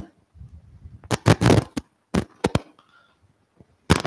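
A scattered series of short, sharp knocks and clicks with a brief rustle, about half a dozen in all. The loudest cluster comes a little over a second in.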